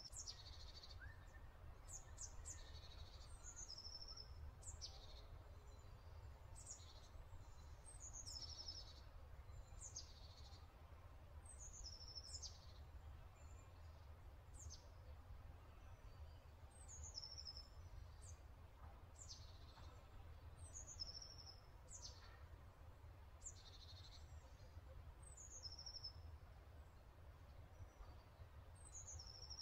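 Faint birdsong: short high chirps and quick downward-sweeping notes, repeated in similar phrases every couple of seconds, over a low steady hum.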